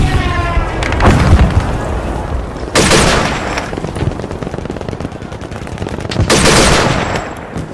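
Airsoft rifles firing in rapid bursts: a steady crackle of shots, with two louder, longer bursts about three and six seconds in.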